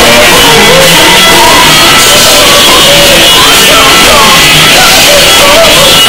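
Live rock band playing loud, electric guitars under a shouted, sung lead vocal.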